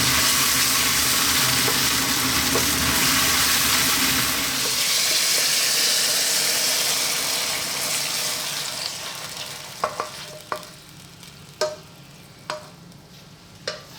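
Pepper-and-onion sauce with ketchup and vinegar sizzling in hot oil in a frying pan as it is stirred. The sizzle fades away past the middle, followed by a handful of sharp clinks a second or so apart.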